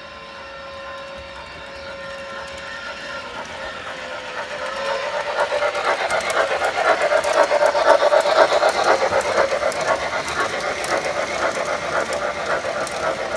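Model 4-6-2 steam locomotive pulling a long train of passenger cars as it approaches and passes, a rapid even clatter of wheels on the track that grows louder and is loudest about two-thirds of the way through. A faint steady tone is heard in the first few seconds.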